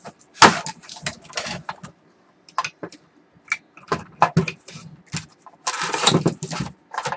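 Plastic case of a small computer UPS being handled and its cover worked open: irregular clicks, knocks and scraping of plastic, with a longer scraping rattle about six seconds in.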